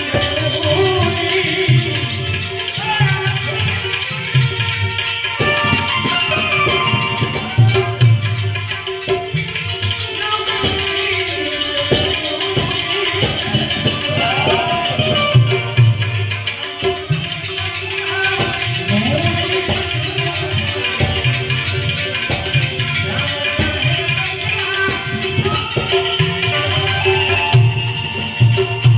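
Devotional bhajan music: a drum beats out a repeating rhythm and jingling hand percussion keeps time over a steady held drone.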